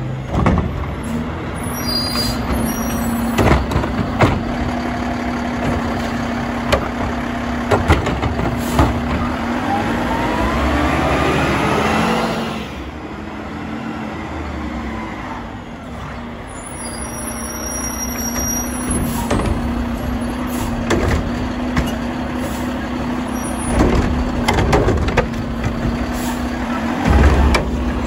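Mack LEU garbage truck with a McNeilus Contender body driving up the street: the engine runs with a steady hum, rises as it accelerates about ten seconds in, eases off, then grows louder as the truck comes close and stops near the end, with air-brake hisses and scattered clunks.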